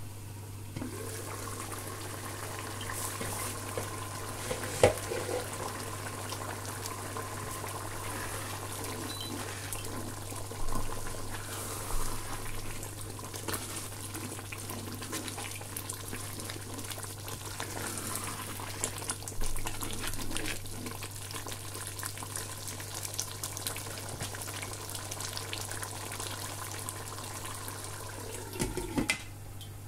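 Egusi soup simmering in a pot while a wooden spoon stirs through the thick mixture, with a sharp clink about five seconds in and a lid clattering back onto the pot near the end.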